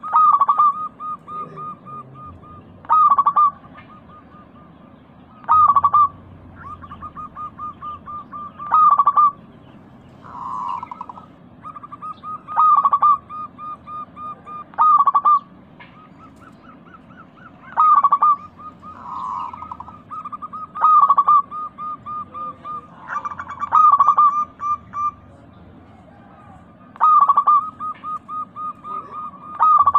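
Zebra dove (perkutut) singing its repeated song, about ten phrases spaced roughly three seconds apart. Each phrase opens with a loud note and trails into a quick run of short, softer staccato coos.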